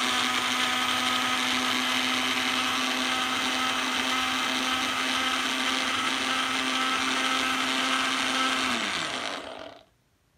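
Personal single-serve blender running steadily at high speed, blending coffee into a froth. About nine seconds in the motor is switched off and winds down with a falling hum.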